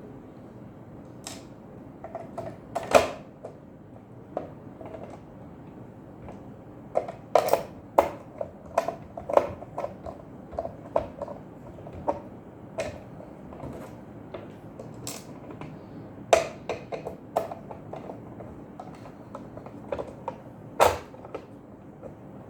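Irregular clicks and knocks of a sandwich maker's parts being handled and fitted back together during reassembly, with clusters of quick taps and a few sharper knocks about 3, 16 and 21 seconds in.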